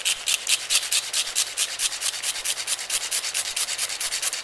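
A cinnamon stick being grated on a microplane zester: quick, even rasping strokes, about six a second.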